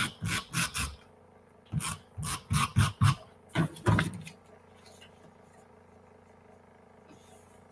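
A tape runner drawn along the back of scrapbook paper in about ten short strokes, in three quick groups during the first four seconds.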